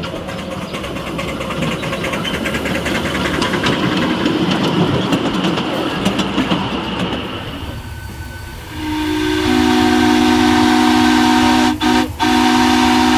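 Live-steam 7.25-inch gauge Union Pacific Big Boy model in steam. A steady rushing hiss is heard first. Then, about nine seconds in, the steam whistle sounds a long, steady two-note chord, broken twice briefly near the end.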